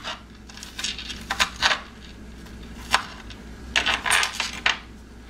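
Kitchen knife chopping onion on a wooden cutting board: sharp knocks of the blade against the board at an irregular pace, some in quick clusters.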